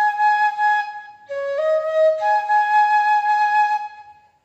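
Bamboo bansuri flute in C sharp playing two solo phrases. Each phrase steps up from short lower notes to a long held higher note, Sa–Re–Pa in the captioned notation. The second phrase fades out near the end.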